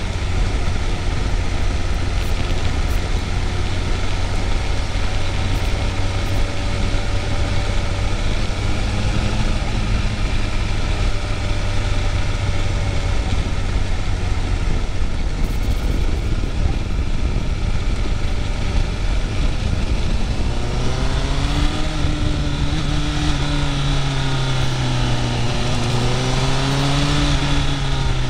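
Motorcycle engine running under way with steady road and wind noise. From about 21 seconds in, the engine note rises and falls several times as the throttle opens and closes.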